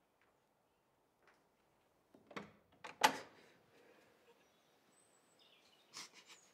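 Door handle and latch of a glass-panelled door clicking and rattling as it is unlatched and opened: a few sharp knocks, the loudest about three seconds in, and another short clatter near the end.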